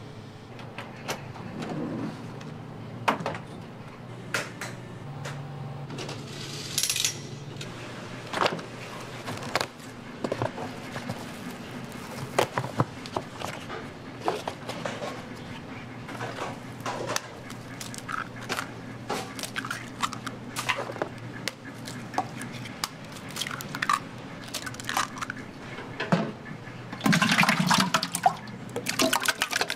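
Raw eggs being cracked one after another, a string of sharp, irregular clicks of shell. Near the end a bowlful of cracked eggs is poured with a splash into a large aluminium pot.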